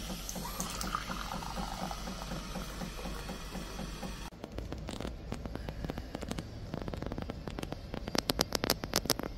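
Jura bean-to-cup coffee machine making a cappuccino, a steady hiss with a fast pulsing as it pumps and froths milk into the cup. About four seconds in this cuts off suddenly to quieter room sound, with a run of sharp clicks near the end.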